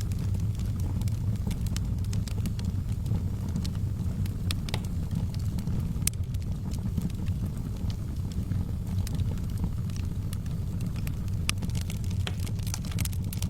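Wood fire crackling in a fireplace: a steady low rush of flames under scattered sharp pops and snaps, which come thicker near the end.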